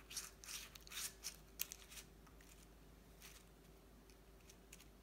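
Faint scrapes and soft taps of a metal spoon dropping thick muffin batter into a paper cupcake liner, mostly in the first two seconds, then near silence with a faint steady hum.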